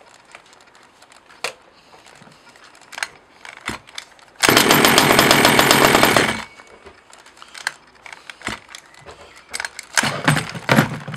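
Petrol two-stroke engine of a 1/5-scale Losi DBXL RC car firing and running loudly for about two seconds, then cutting off suddenly. Scattered clicks and knocks of handling come before and after it, and another loud mechanical burst starts near the end.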